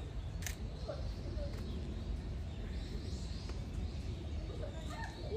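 Outdoor ambience: a steady low rumble with a few faint bird chirps about a second in and a couple of small sharp clicks.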